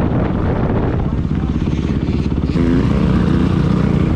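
Honda CRF250R dirt bike's single-cylinder four-stroke engine running steadily at low revs close to the helmet camera, stepping up a little louder about two and a half seconds in.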